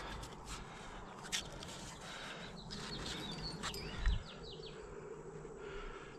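Crack climbing on sandstone: scuffing and scraping of taped hands against the rock, with a couple of sharp clicks and a low thump about four seconds in.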